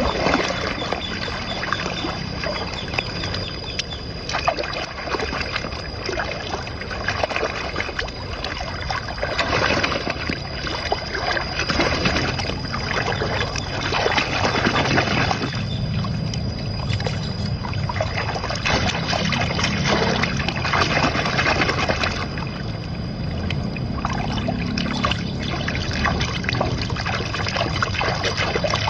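Water trickling and splashing, an ongoing uneven pouring sound.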